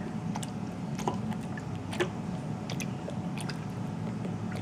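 Plastic squeeze bottle squirting simple syrup onto a sponge cake layer, giving soft squishes and a scattered handful of small wet clicks as the tip is pressed against the cake. A steady low hum runs underneath.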